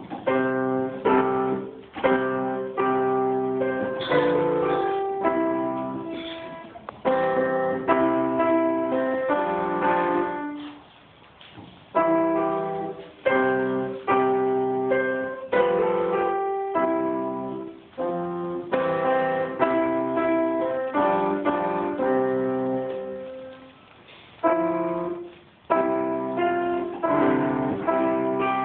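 Grand piano played solo: a piece in short phrases of melody and chords, each note struck and then dying away, with brief pauses between phrases.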